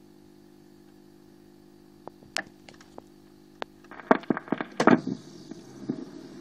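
Dansette record player humming steadily, then a few sharp clicks, and about four seconds in a run of loud clicks and crackles as the stylus meets a record sliced into pieces and reassembled.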